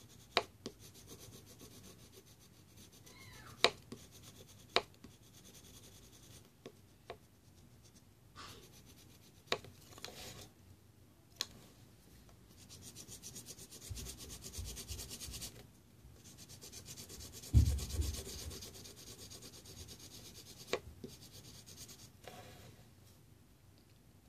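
Scratchy rubbing and scraping in stretches, with scattered sharp clicks and one dull low thump a little past the middle, the loudest sound in the stretch.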